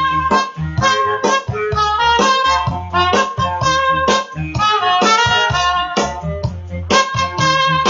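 Instrumental music with a steady beat, a reedy lead melody over plucked strings and bass.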